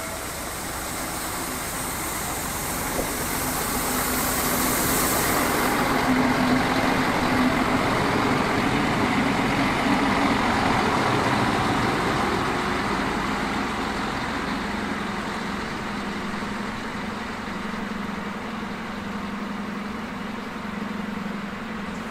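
DB Class 641 diesel railcar running past, its diesel engine humming steadily, growing louder to about halfway through and then fading. A high hiss sits over it for the first six seconds or so.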